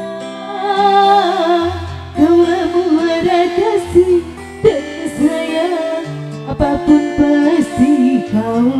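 Live band music: a singer's melody with strong vibrato over accompaniment with sustained bass notes and plucked-string sounds.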